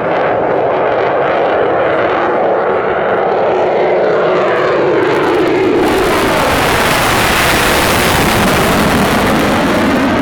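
F-22 Raptor's twin F119 turbofan engines making a flying pass. The steady jet noise drops in pitch through the first half. About six seconds in it turns louder and brighter, with strong hiss.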